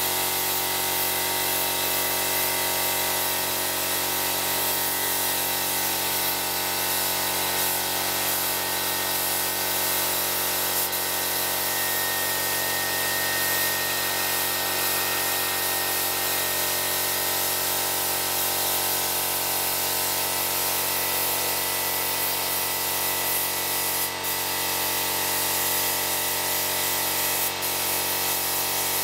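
Compressor-fed paint spray gun hissing steadily as it sprays white paint, over the steady hum of the air compressor running.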